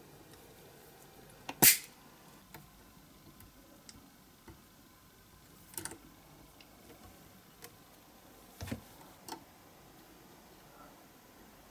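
A few sharp clicks and small knocks from metal hand tools and parts being handled on a workbench, the loudest about a second and a half in, over quiet room tone.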